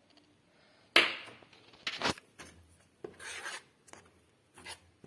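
Metal spoon scraping and knocking against a saucepan as caster sugar is folded into melted butter and condensed milk. A sharp knock about a second in is the loudest, followed by several shorter clinks and a gritty scrape.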